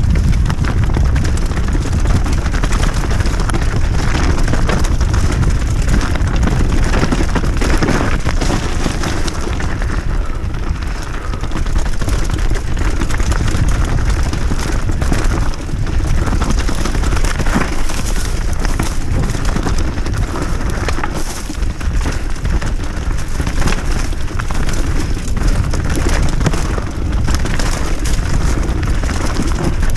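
Wind buffeting the action-camera microphone over the constant rattle and clatter of an enduro mountain bike descending a rocky trail at speed, with many small knocks as the tyres and frame hit stones.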